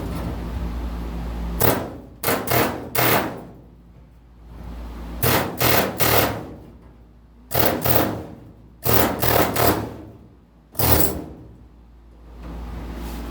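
Pneumatic air hammer firing in short bursts, about a dozen in groups of two or three, as its chisel is driven between the overlapping cab-corner sheet-metal panels to break apart the spot welds that drilling missed. A steady low hum sits underneath.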